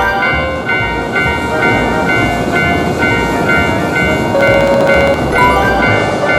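Japanese railroad crossing bell clanging in a steady repeating rhythm, about two strokes a second, while a train passes through the crossing with a continuous rumble.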